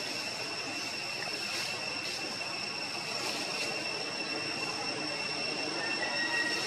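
Steady background drone: a continuous high-pitched whine over an even hiss, with a short, higher tone joining about six seconds in.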